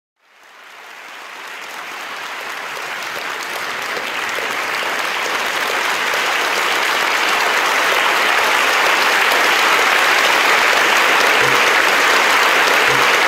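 A large auditorium audience applauding, a dense, steady clapping that rises out of silence at the start and swells louder over the first several seconds before holding steady.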